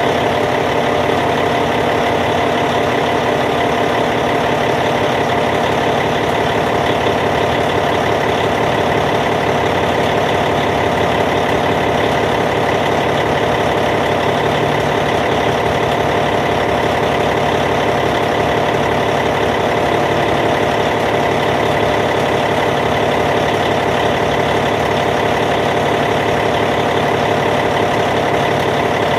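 Caterpillar C15 inline-six diesel engine of a D8T bulldozer idling steadily, with an unchanging note.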